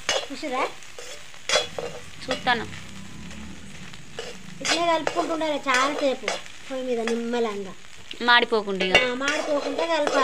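A metal spatula stirring and scraping crumbled fish roe around a metal kadai. The scraping gives clicks at first, then wavering pitched squeals from about four seconds in. A frying sizzle runs underneath.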